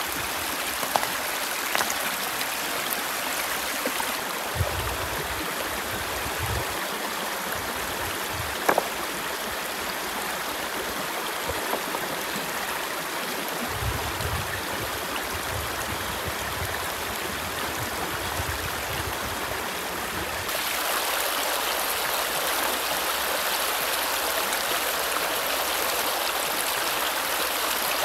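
Shallow river running fast over rocks, a steady rush of water, with a few sharp knocks of river stones being set in place. The rush gets louder about two-thirds of the way through.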